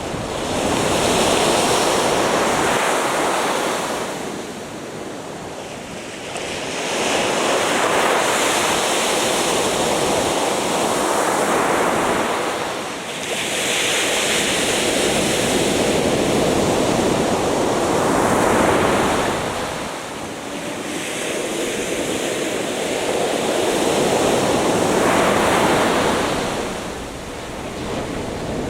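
Atlantic Ocean surf breaking on a beach, the waves rushing in and washing back in four long swells, about one every six to seven seconds.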